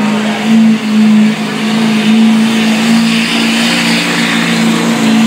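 Diesel 4x4 pickup truck's engine held at full throttle under heavy load while pulling the sled in a truck pull, a loud, steady drone that holds one pitch.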